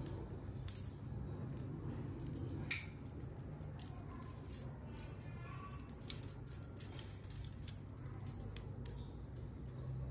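Steel bicycle spokes clicking and jangling lightly against one another and against the hub as they are handled and threaded through the hub flange: scattered small metallic clicks over a steady low hum.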